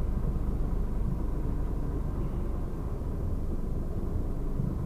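Lorry's diesel engine running steadily as the truck creeps along at very low speed, a constant low engine sound heard from inside the cab.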